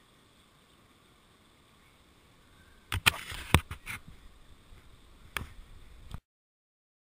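Fingers handling the camera: a cluster of loud knocks and rubbing on the housing about three seconds in, one more sharp click about two seconds later, then the sound cuts off abruptly.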